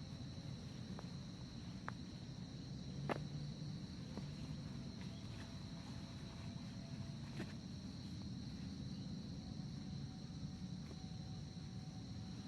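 Forest insects droning steadily at a high pitch, with a few sharp clicks or knocks; the loudest is about three seconds in.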